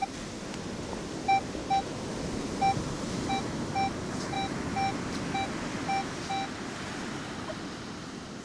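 Metal detector sounding a target: about a dozen short beeps at one mid pitch, some in quick pairs, as the coil sweeps over a buried object. Steady surf and wind hiss underneath.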